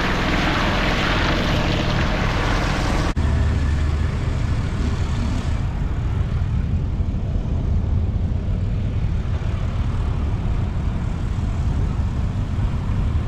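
Utility cart driving over muddy ground, a broad hiss of tyres and motor over a low hum. About three seconds in it cuts off suddenly, and a steady low rumble takes over.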